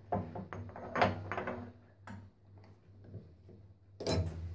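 A steel workpiece being set by hand into a milling machine vise: metal clanks and scrapes for the first couple of seconds, a single click about two seconds in, and another sharp clatter near the end, over a low steady hum.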